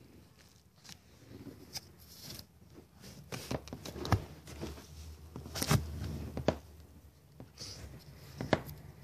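Soft rustling and scuffing on fleece bedding and cardboard, broken by about half a dozen sharp knocks, as kittens shift and roll about in a blanket-lined box. No meowing.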